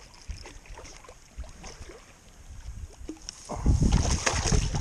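Soft clicking of a baitcasting reel as the line is cranked in. About three and a half seconds in comes a loud splashing and thrashing at the water's edge as a poorly hooked bass shakes free near the bank.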